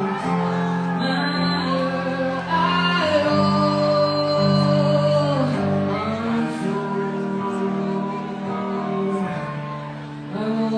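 Live rock band playing a song, with a lead vocal holding long sung notes over guitar chords.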